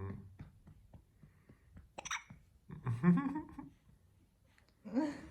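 Hiccups: a sharp one about two seconds in, with short voiced sounds between them.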